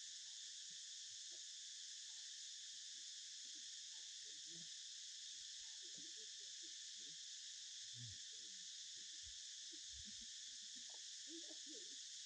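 Steady chorus of insects, an even high-pitched hiss that does not change, with faint, scattered short low sounds beneath it.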